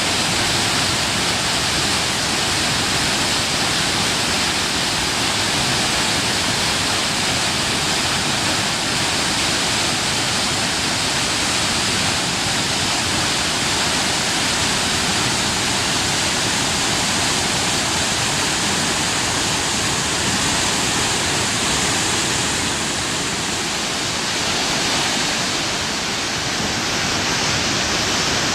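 Fast-moving floodwater rushing, a loud, steady noise that does not let up.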